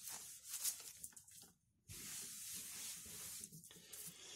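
Faint rustling of a cloth rag wiping spilled petrol off a plastic bottle, broken by a brief silence about one and a half seconds in.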